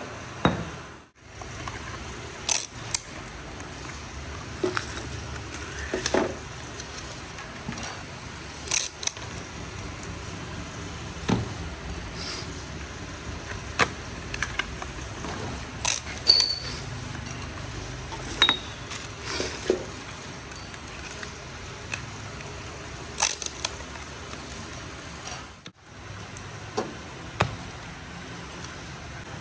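Steel truck kingpins being slid into cardboard boxes and the boxes handled and set down: scattered sharp taps, clicks and cardboard rustles every second or two.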